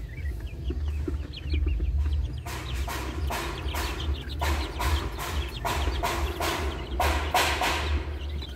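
Young chickens clucking and peeping in a pen. From about two and a half seconds in comes a run of repeated scratchy rustles.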